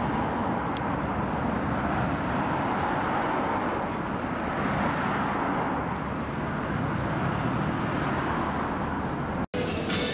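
Steady city road traffic, with the engines and tyres of passing cars and trucks. The sound drops out completely for a moment near the end, then resumes with a different traffic texture at a new spot.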